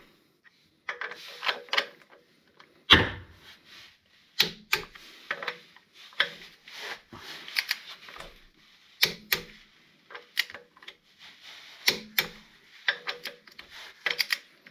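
Click-type torque wrench ratcheting and clicking over on the flywheel bolts as they are tightened to 44 Nm: a run of sharp metallic clicks in irregular clusters, with one heavier knock about three seconds in.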